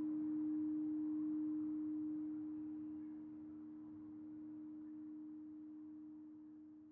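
Crystal singing bowls tuned to D# and A# ringing out together: a steady pure hum with a second, lower tone beneath it, slowly dying away.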